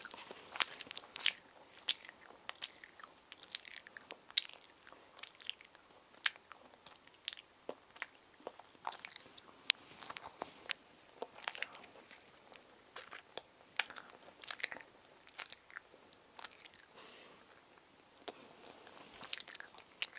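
A child biting and chewing a soft sandwich close to the microphone: quiet, irregular mouth clicks and smacks.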